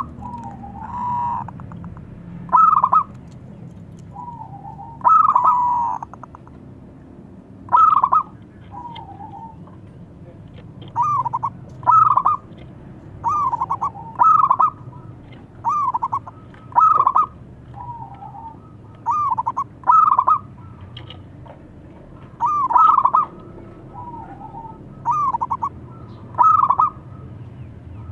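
Zebra dove (perkutut) cooing: short ringing coos repeated every second or so, many in quick pairs, with softer, lower notes in between.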